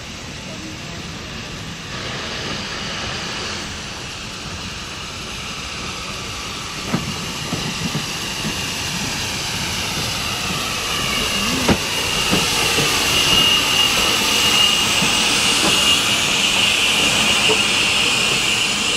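Urie S15 class 4-6-0 steam locomotive No. 506 running slowly into a station platform. It grows louder as it approaches, with a hiss of steam. A high steady squeal comes in over the last few seconds as it slows alongside the platform.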